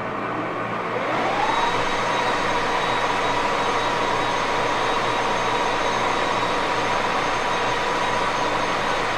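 1941 Axelson gear-head engine lathe spinning up: a whine rises in pitch about a second in and then holds steady over the running gear and motor noise.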